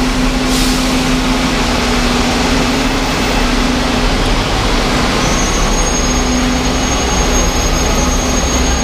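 Double-decker bus engine idling with a steady low hum, over constant street-traffic noise. A thin high whine joins about halfway through.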